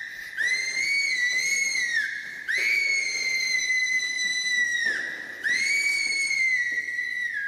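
Three long blasts on a whistle, each held steady on one high note and dropping off at its end.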